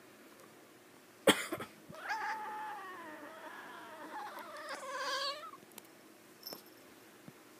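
Domestic cat vocalising: a sudden sharp noisy burst about a second in, then a long drawn-out meow falling in pitch, and a wavering, warbling yowl a little after the middle.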